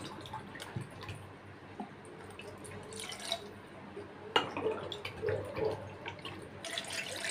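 Water poured from a plastic bottle into a cup in short, splashy pours, with a sharp knock a little past the middle.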